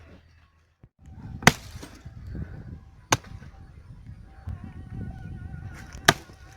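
Axe chopping into a tree: three sharp strikes, the second about a second and a half after the first and the third about three seconds later.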